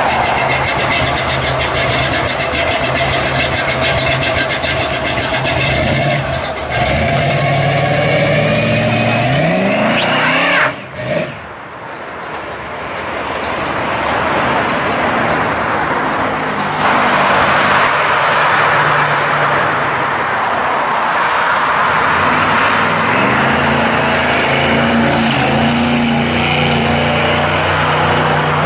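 1968 Chevy C10 pro street pickup's engine running at idle, then revving with a rising pitch as the truck pulls away. After a short dip about eleven seconds in, the engine is heard accelerating off up the road, mixed with the noise of passing traffic.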